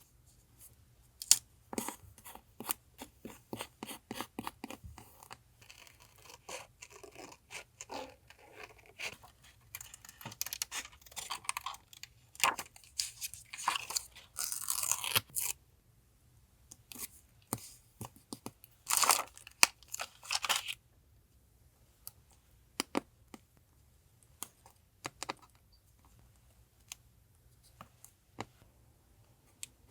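Paper being handled for a collage: crinkling and tearing with many small taps and clicks. There are longer tearing stretches midway, then only scattered soft taps in the last third.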